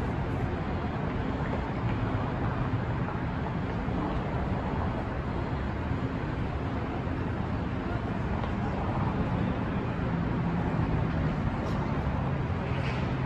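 Downtown street traffic: a steady rumble of vehicle engines and tyres, with an engine hum running underneath and voices mixed in.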